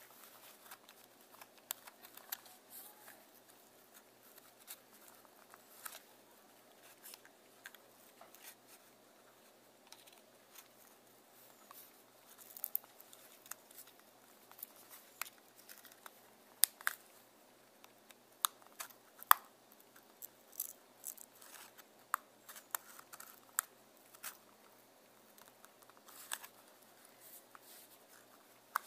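Small flat-blade screwdriver prying at the plastic barrel and side cover of a Canon EF 50mm f/1.8 II lens: irregular sharp clicks and scrapes of metal tip on plastic, coming thicker about halfway through.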